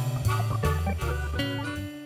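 Instrumental outro music with guitar over a bass line, getting quieter, with one note held near the end.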